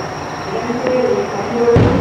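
A firework shell bursting with a single deep boom near the end, over a steady background of pitched, music-like tones.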